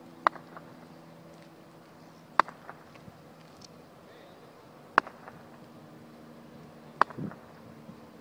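Four short, sharp clicks, evenly spaced about two and a half seconds apart, over a faint steady hum.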